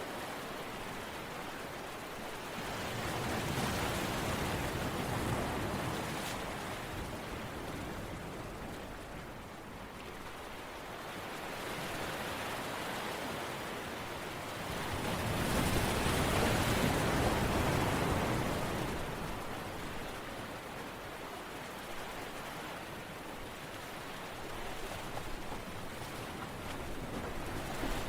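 Continuous rushing water-like noise, like surf or heavy rain, swelling louder a few seconds in and again, more strongly, about halfway through before easing back.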